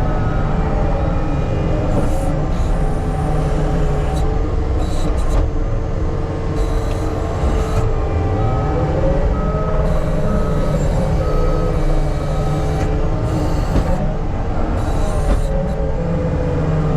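Diesel earthmoving machine running steadily under load while grading dirt, with a reversing alarm beeping at even intervals in the middle and again near the end.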